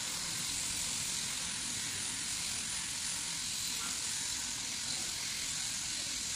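Electric sheep-shearing handpiece running steadily as it cuts through a fleece: a continuous high hiss with a low rumble beneath, unbroken throughout.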